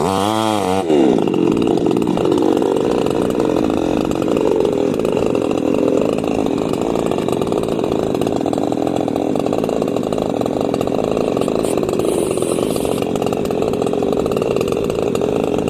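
Small two-stroke 'mini Maestro' chainsaw running at high revs while cutting wood. Its engine note dips and climbs back within the first second, then holds steady.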